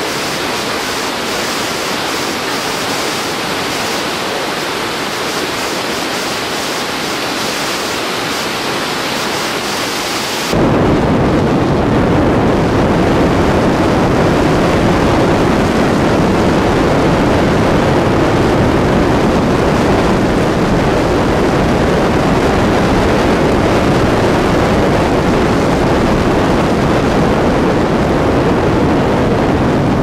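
Steady hissing rush of a waterfall; about ten seconds in it cuts off abruptly to a louder, deeper steady rumble of a car driving on a snowy road.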